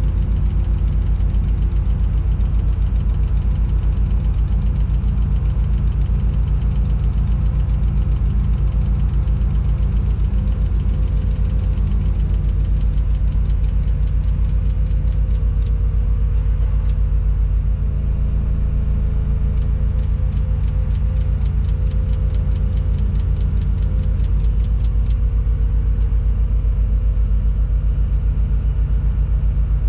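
Diesel engine of a Tadano 180G-5 rough-terrain crane running steadily with a fast even pulse, heard from inside the operator's cab while the crane carries a concrete girder in a lift. The engine note shifts slightly about halfway through.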